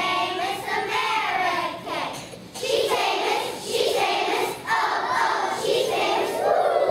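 Children's choir singing a song in sung phrases, with a short break about two seconds in, ending on a long held note.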